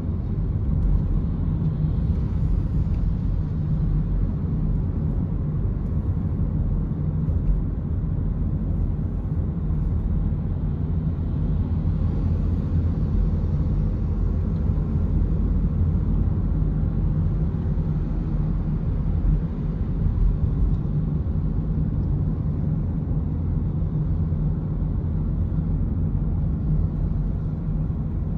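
Steady low rumble of a car driving at highway speed, heard from inside the cabin: engine and tyre road noise.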